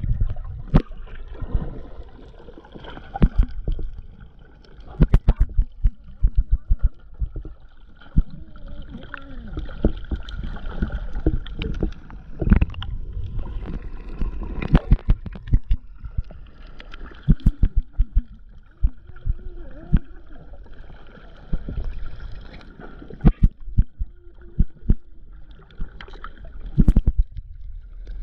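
Underwater sound from a GoPro in its waterproof housing: a steady low rumble of moving water with frequent sharp knocks and clicks against the housing, and short bubbling sounds.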